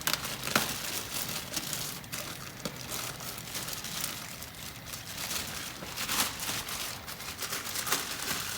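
Faint rustling and a few light clicks of hands turning a new wheel hub; the hub bearing itself spins with no noise, as a healthy bearing should.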